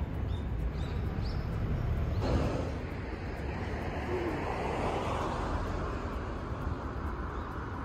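Outdoor roadside ambience: the steady hiss and low rumble of road traffic.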